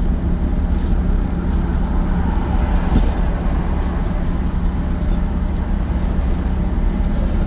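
Cab noise of a cargo truck driving on the highway: a steady low engine drone and road rumble, with a constant hum under it.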